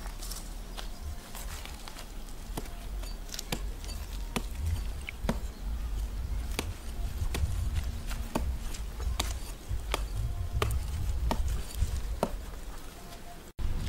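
Knife blade scraping and cutting along a snake's belly scales, a sharp click with each stroke, about one a second, over a low rumble.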